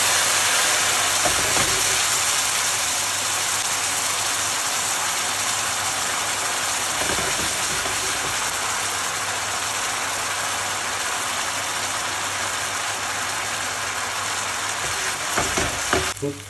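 White wine hitting a hot frying pan of toasted arborio rice and boiling off, a loud steady sizzling hiss that eases off slowly as the wine reduces: the deglazing step of a risotto.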